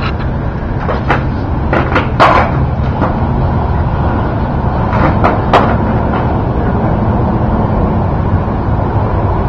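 Skateboard deck and wheels knocking on concrete during flatland tricks: a few sharp clacks, the loudest about two seconds in and two more around five seconds in, over a steady low rumble.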